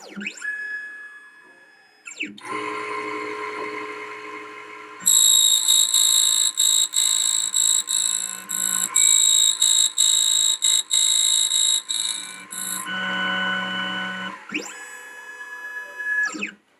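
Automatic 3D Extreme key-cutting machine cutting the second side of a key blank. Its motors whine with gliding pitches as the carriage moves. From about five seconds in, the cutter runs loud and steady, with many brief dips, and it eases off about thirteen seconds in before more gliding motor whines near the end.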